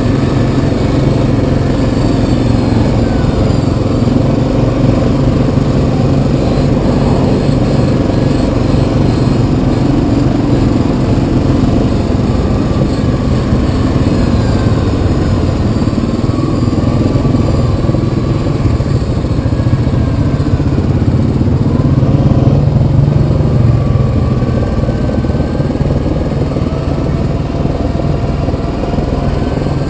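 Yamaha Kodiak 700 ATV's single-cylinder engine running while riding a trail, its pitch rising and falling with the throttle and swelling slightly a little past two-thirds through.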